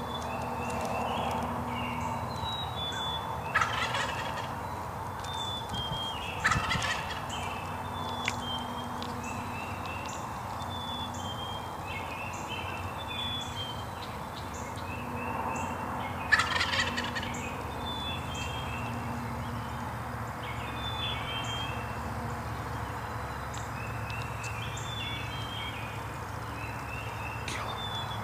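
Wild turkey gobbler gobbling three times: about three and six seconds in, then once more about ten seconds later.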